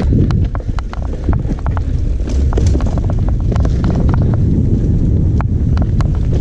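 Mountain bike riding fast down a dirt singletrack: wind buffeting the microphone and a steady low tyre rumble, with frequent irregular clicks and rattles from the bike as it bounces over the trail.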